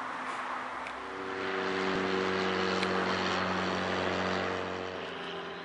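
Light propeller aircraft flying overhead: a steady engine-and-propeller drone that swells about a second in and eases off with a slight drop in pitch near the end as it passes.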